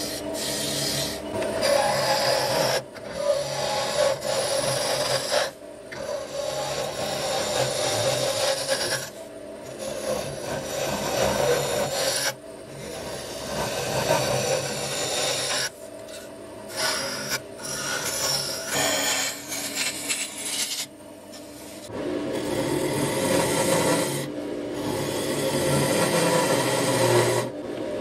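Turning tool cutting into a wooden blank spinning on a lathe: a rough, steady scraping of shavings coming off the wood. It breaks off briefly several times as the tool is lifted from the wood, with a longer pause a little after two-thirds of the way through.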